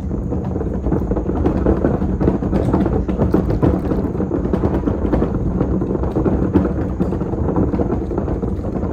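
Empty wheeled trash can pulled over a gravel driveway, its wheels rumbling and clattering continuously over the stones, loud, along with footsteps on gravel.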